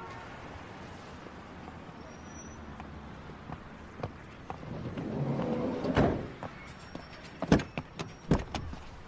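Sliding side door of a Mercedes-Benz V-Class van run along its track, building to a thud about six seconds in, then a few sharp clunks of the door and its latch.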